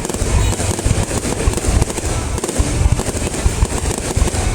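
Aerial fireworks going off in a dense, continuous barrage of bangs and crackles, one after another with no pause. This is the closing barrage of the display.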